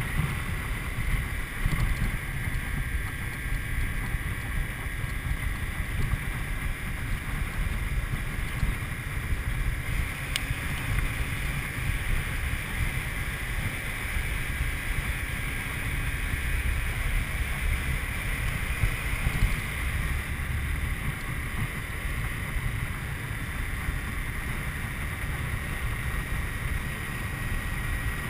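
Wind noise buffeting the camera microphone while riding a Honda CBR250R motorcycle at road speed, its single-cylinder engine running steadily underneath, with a steady high whine throughout.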